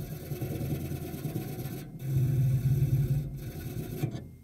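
Hand wire brush scrubbed rapidly back and forth over a fresh MIG weld seam on a classic Mini's steel bulkhead panel, cleaning off the scorch and spatter. It is a rough, continuous scraping that breaks off briefly twice.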